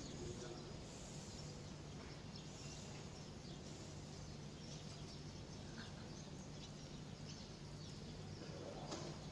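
Faint outdoor ambience: a steady low hum under scattered faint high chirps.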